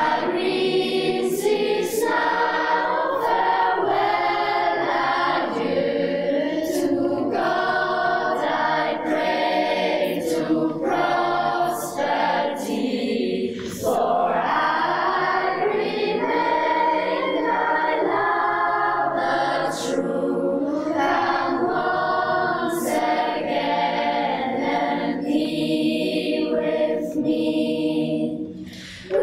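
Mixed youth choir of children and teenagers singing together, with a brief dip about halfway through and the phrase trailing off just before the end.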